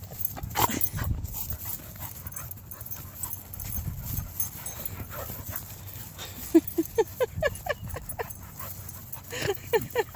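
Dog giving two quick runs of short, high whines and yips, about five a second, in the second half, with low rumbling from movement earlier on.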